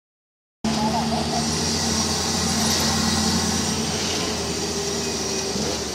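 Jeep engine running steadily under way, with wind and road noise. It cuts in after a short silence near the start.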